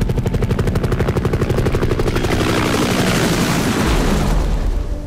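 Helicopter sound effect: rapid, steady rotor-blade chop over a low engine rumble. A rushing hiss swells around the middle and dies away near the end.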